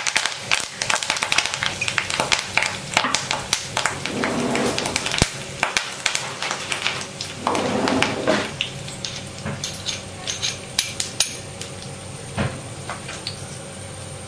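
Curry leaves and panch phoron spluttering in hot oil in an iron kadai: a dense crackle of sharp pops that thins out after about nine seconds.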